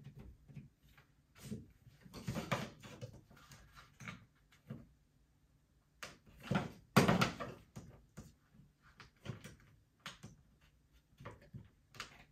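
Scattered knocks, clunks and rustling of things being handled, irregularly spaced, with the loudest clunk about seven seconds in.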